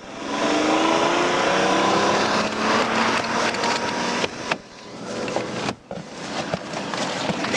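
A car engine revving up, its pitch climbing steadily over the first two seconds, then running on at a steady pitch under a loud rushing noise.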